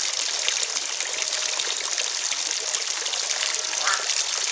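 Steady trickling and splashing of running water in a garden koi pond.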